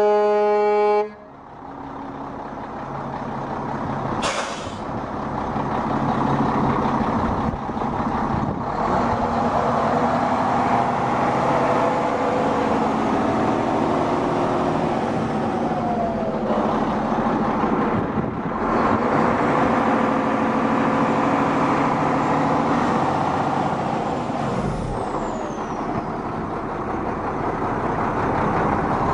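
A 2006 Mack CXN613 semi truck's horn sounds and cuts off about a second in, a short air hiss follows a few seconds later, then the truck's Mack 460P 12.0L diesel engine runs steadily under way, rising and falling with a few brief dips in its sound.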